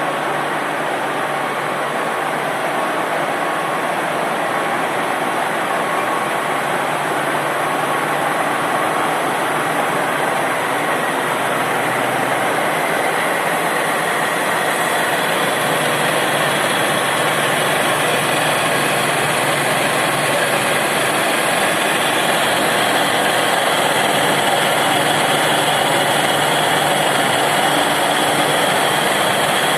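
Milling machine cutting slots: a steady mechanical running noise that grows slightly louder in the second half.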